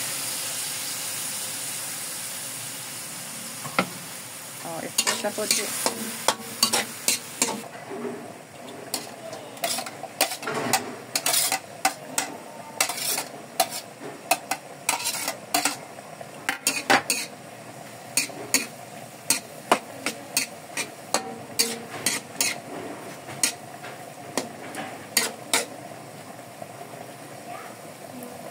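Stir-frying in a metal wok: a sizzle of sauce on the hot pan that dies down over the first few seconds, then a metal spatula scraping and clinking against the wok in quick, irregular strokes.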